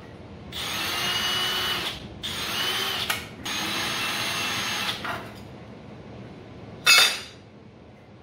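Cordless drill run in three bursts of one to one and a half seconds each, its motor whining as it spins a bit through the holes of a sheet-metal motor bracket to spot-mark where the holes go. A single sharp knock comes about seven seconds in.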